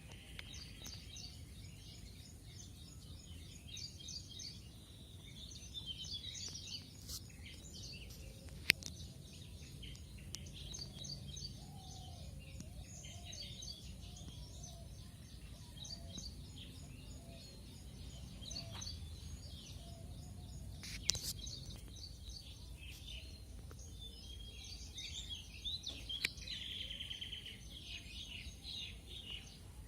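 Several small birds chirping and singing in quick, overlapping calls over a steady low rumble. A few sharp clicks stand out, the loudest about 9 seconds and 21 seconds in.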